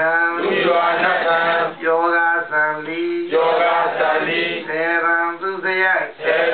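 A Buddhist monk chanting into a handheld microphone: one male voice in a sung recitation, holding long notes with short pauses for breath.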